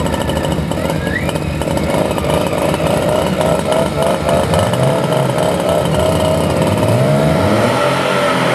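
Engines of a vintage motorcycle and a Porsche 911 running at a standstill side by side, a rapid even pulsing of exhaust beats in the first half. From about five seconds in the revs rise and fall, as the engines are blipped before pulling away.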